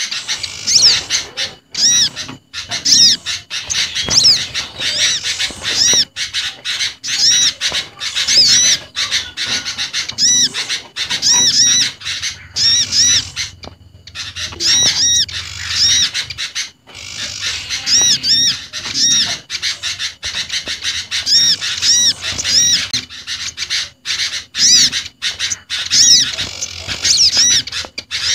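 A bird-luring recording of small garden songbirds mixed together (olive-backed sunbird, prinia and sooty-headed bulbul calls) chattering continuously, with short arching high notes repeated many times over.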